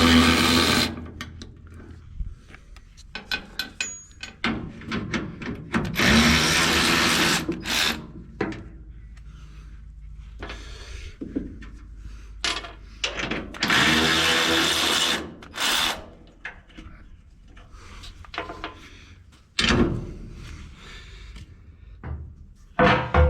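A power tool runs in three bursts of about two seconds each, with short clicks and clanks of hand-tool work between them.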